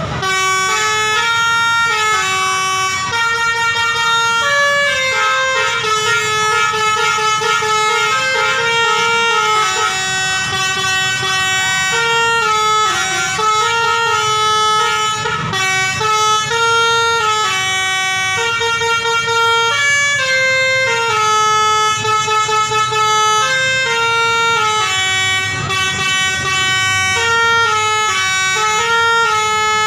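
Indonesian 'telolet' bus horn, a set of musical air horns, playing a continuous tune of held notes that step up and down in pitch without a break.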